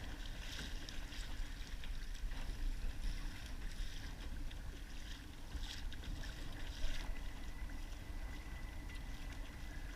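Wind rumbling on the camera microphone, with water lapping and splashing against a kayak hull in short irregular ticks.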